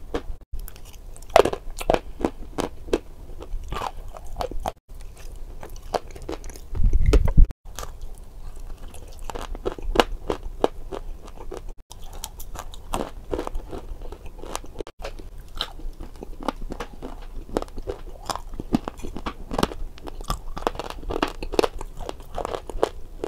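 Close-miked biting and chewing of crunchy food, with many sharp, irregular crunches throughout. A brief low thud about seven seconds in is the loudest moment.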